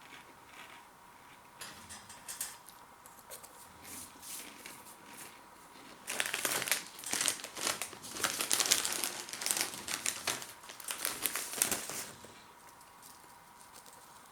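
Plastic crisp packet crinkling and rustling. It is faint and intermittent at first, then loud and continuous for about six seconds from the middle.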